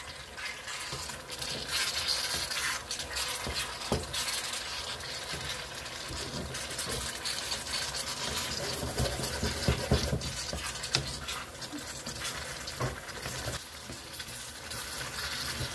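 A spatula stirring and scraping chicken and tomato through a frying pan, with the food sizzling and the spatula knocking on the pan a few times.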